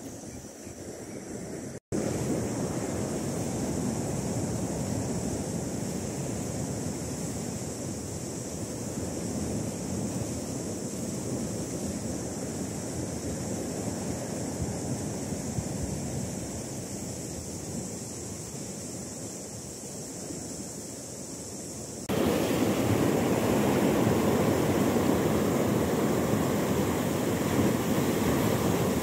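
Steady sea and wind noise at the shore, with wind rumbling on the microphone, broken by a momentary dropout about two seconds in. About 22 seconds in it jumps to louder surf breaking and washing over a rock shelf on a rising tide.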